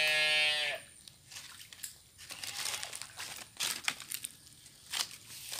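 Mud and shallow muddy water scooped and sloshed with a plastic crate in a drained pond bed, with scattered squelches, splashes and crackling leaf litter. It opens with the end of a loud, steady, high-pitched call that stops under a second in.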